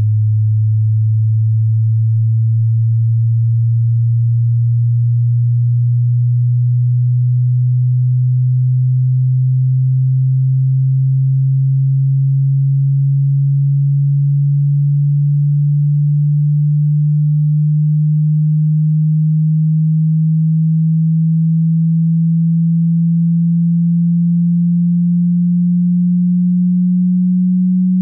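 Hearing-test tone: a single low pure tone at constant loudness, slowly and steadily gliding upward in pitch.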